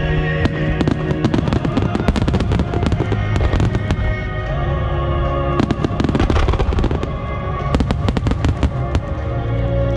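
Star mine fireworks finale: a rapid barrage of shell bursts and crackling, in dense clusters with a short lull around the middle, over steady music.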